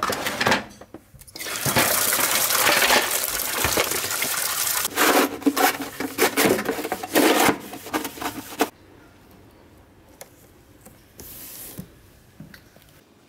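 Water splashing and running as plastic fan base parts are washed in a basin, with the plastic pieces knocking and clattering against each other. It cuts off suddenly about two-thirds of the way in, leaving only faint sound.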